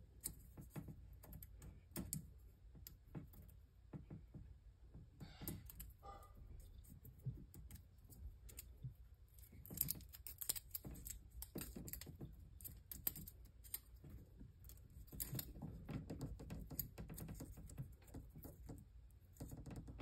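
Aluminum foil shield being peeled and unwrapped from the twisted pairs of a Cat8 cable: faint, irregular crinkling and small clicks.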